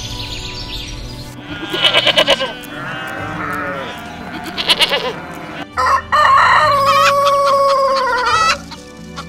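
A goat bleats twice, then a rooster gives one long crow that drops in pitch at the end, with background music underneath.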